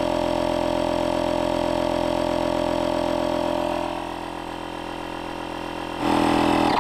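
Electric high-pressure boat pump running on an inflatable boat's air floor, a steady drone with a rapid regular pulse. It drops in level about four seconds in, goes louder again near the end, then stops abruptly as it reaches its set pressure of 1034.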